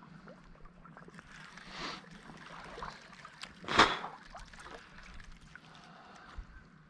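Creek water trickling and splashing, with one short, loud thump just under four seconds in.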